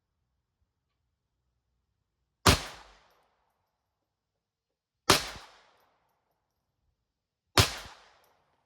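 Smith & Wesson 422 .22 LR pistol firing three single shots about two and a half seconds apart, each with a short ringing echo that dies away quickly.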